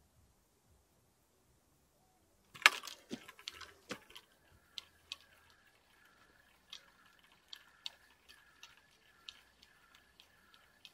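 A few sharp knocks as a fishing rod is handled, then a fishing reel being wound in at an even pace, a soft squeak and clicks repeating about twice a second as a fish is brought in through the weeds.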